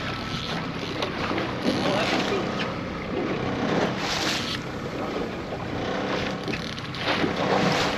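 Outboard motor running steadily under wind on the microphone and the wash of sea water. A few louder splashing rushes come from a hooked coho salmon thrashing at the surface beside the boat.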